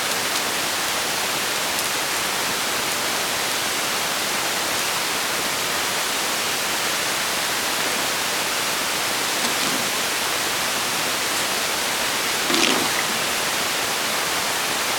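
A steady, even hiss of static-like noise, with one brief short sound rising above it late on.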